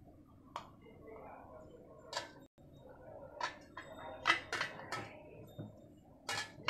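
Steel puttu tube clinking and knocking against a stainless steel plate as the freshly steamed puttu is taken off the steamer and pushed out of the tube. There is a scattering of sharp metallic clinks, bunched together and loudest just after four seconds in.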